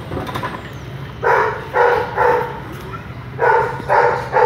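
A dog barking in two runs of three quick barks, over a steady low rumble.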